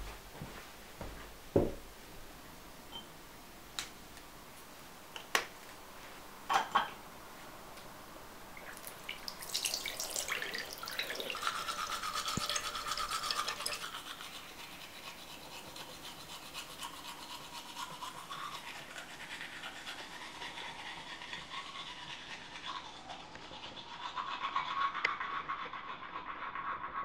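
A few sharp knocks in the first seven seconds, then a toothbrush scrubbing teeth. The scrubbing is heaviest about ten seconds in and again near the end.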